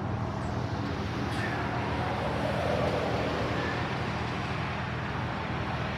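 Steady road traffic noise with a car passing on the road, swelling about halfway through.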